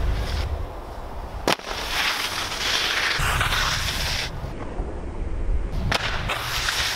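Wind rumbling on the camera microphone while skis scrape across packed snow, with a hiss of snow that peaks as the skier reaches the jump. Two sharp cracks cut through, one about one and a half seconds in and one near the end.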